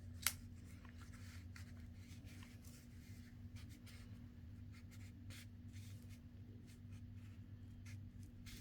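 Paper tags being slid into cardstock pockets: faint rustling and scraping of paper against paper, with one sharp click shortly after the start, over a low steady hum.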